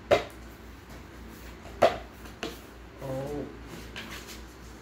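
Cardboard box flaps being pulled open by hand, with two sharp knocks about two seconds apart as the flaps come loose and a fainter one just after. A brief pitched whine about three seconds in.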